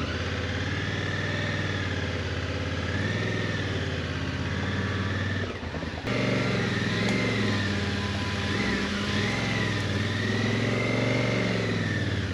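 Chainsaw running and cutting through a fallen tree trunk, its pitch wavering up and down as it bites into the wood. It drops out briefly about halfway through, then picks up again.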